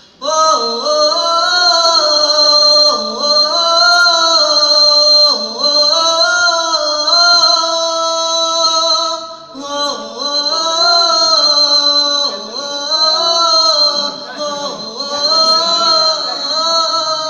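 A man singing, holding long notes that slide up and down in pitch, with a short break about halfway through. A steady high hiss runs behind the voice.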